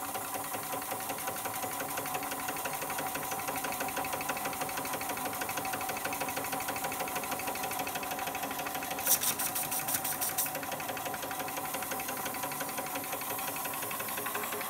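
Josef Falk 143/2 live-steam toy engine running, its horizontal cylinder and flywheel chuffing in a rapid, even patter. About nine seconds in, a brief louder burst of rapid high-pitched pulses.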